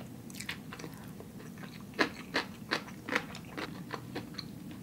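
A person chewing a mouthful of food close to the microphone: a run of soft wet mouth clicks, the clearest starting about two seconds in and coming roughly every half second.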